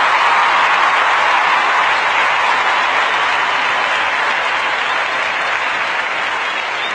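Audience applause, a steady even clapping that slowly fades.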